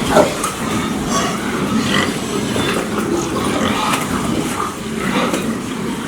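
Pigs grunting, many short calls overlapping.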